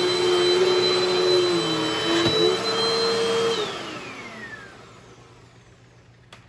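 Dirt Devil Dynamite Plus stick vacuum running with a steady motor whine, then switched off about three and a half seconds in, its pitch falling as the motor spins down and fades away. A sharp click near the end.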